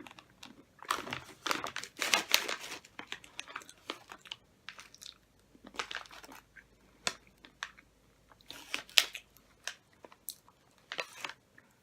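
Plastic snack bag of salt and pepper cashews crinkling and rustling as nuts are taken out, with cashews being crunched and chewed.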